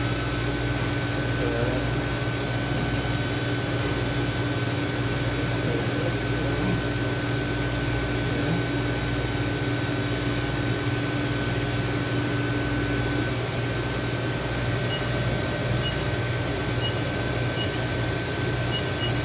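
Steady machine hum with a rushing air noise, even in level throughout. A faint higher tone in it stops about two-thirds of the way through, and a few faint ticks come near the end.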